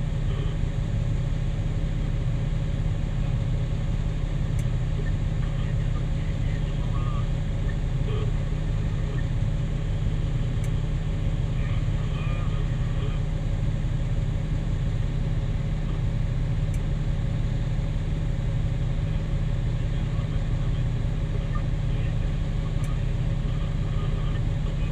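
Diesel engine of a Caterpillar 6020B hydraulic mining shovel running at a steady, deep drone while the machine works its bucket.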